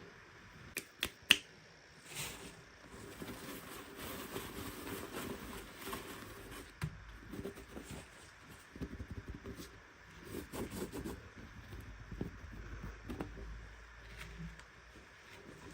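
Hands unboxing small plastic toys: three sharp clicks about a second in, then irregular rustling and scraping of packaging with many light clicks and taps.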